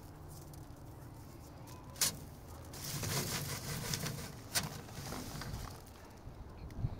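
Dried amaranth flower heads and stalks being rubbed and tossed by hand on a wire-mesh screen to thresh out the seed: rustling of dry plant material with scattered sharp snaps. There is one loud click about two seconds in, and the rustling grows busier from about three seconds in.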